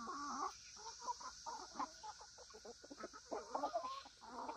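A flock of chickens foraging and clucking quietly, with many short calls overlapping throughout.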